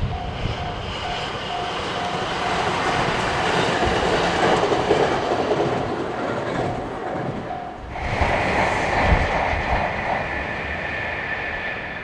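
A train passing over a level crossing: rail and wheel clatter with the crossing's warning bell ringing about twice a second. About two thirds of the way through, the sound changes suddenly and a steady high whine comes in.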